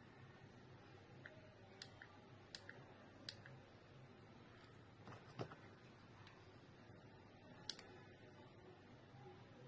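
Faint, scattered clicks of small plastic remote-control buttons being pressed and the remotes handled, about seven in all, the loudest a click with a soft knock about five seconds in.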